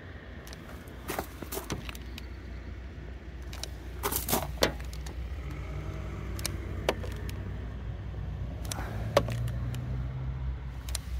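Steady low rumble of a vehicle engine, strongest from about six to ten seconds in, with scattered sharp clicks and taps and a light jingle like keys.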